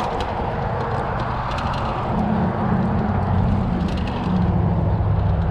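Wind rushing over the microphone and a mountain bike's knobby tyres rolling over a packed-dirt trail. The rumble grows louder about two seconds in and again after four seconds as the bike picks up speed through the rollers.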